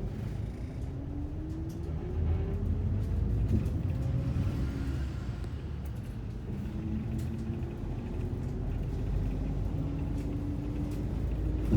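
A city bus's engine and drivetrain heard from inside the bus: a steady low rumble with a whine that rises in pitch over the first few seconds as it gathers speed, then settles into steadier tones as it drives on.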